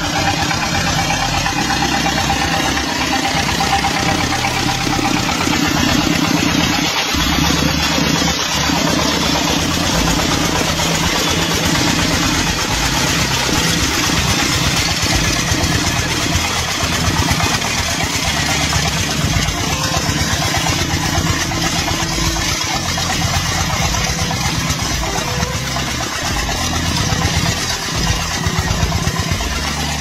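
Diesel engine of a two-wheel walking tractor running steadily with an even chugging, pulling a potato digger through the soil.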